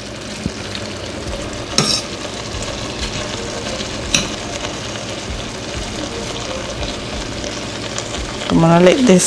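Sautéed greens, sweet peppers, onions and mushrooms sizzling steadily in a stainless steel frying pan as they are stirred. There are a couple of sharp clicks, about two and four seconds in.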